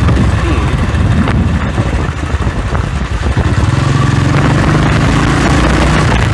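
Motorcycle engine running while riding, heard through a budget earphone's inline mic, with wind rushing over the mic.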